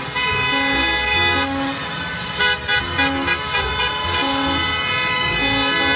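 School bus horns honking: a long, steady horn blast held throughout, with other horns at different pitches sounding over it and a flurry of short toots in the middle.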